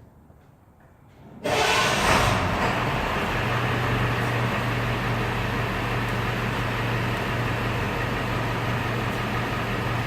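Hino 258 medium-duty truck's diesel engine running steadily with a low, even hum. The sound comes in abruptly about one and a half seconds in.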